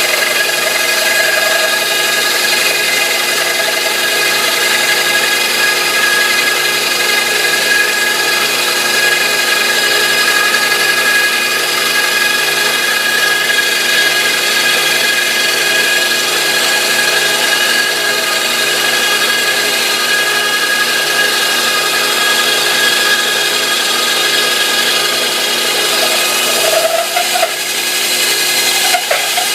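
Bench drill press fitted with a 2 hp electric motor, running steadily at a constant pitch with a whining hum.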